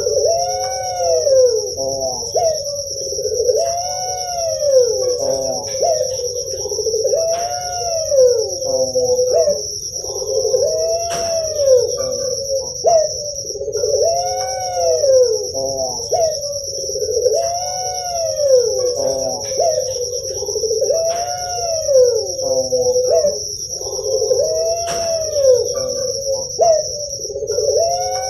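Puter pelung doves (Streptopelia risoria) cooing again and again, a rising-and-falling coo about every two seconds, over a steady high-pitched whine.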